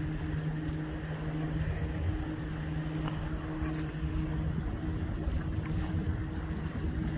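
A boat's engine running at a steady speed, giving a low, even drone.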